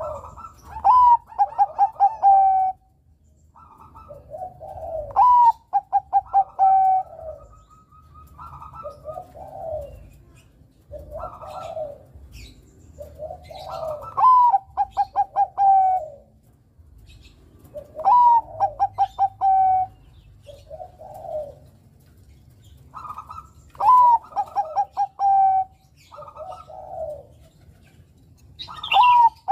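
Bangkok perkutut (zebra dove) singing its cooing song. Phrases repeat every three to four seconds, each a quick run of short clipped notes that ends in lower, drawn-out coos.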